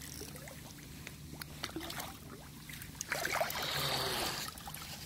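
Lake water splashing and sloshing at the shoreline, with small drips and splashes and a louder splash about three seconds in.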